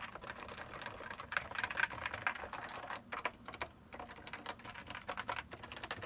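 Typing on a Topre Type Heaven keyboard: 45 g electrostatic-capacitive rubber-dome switches under Hi-Pro PBT dye-sub keycaps, giving rapid, muted keystrokes with brief pauses. The typing stops at the very end.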